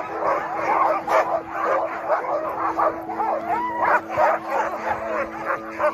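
A chorus of many huskies in harness barking, yipping and howling over one another without a break, the excited clamour of a sled team waiting to run.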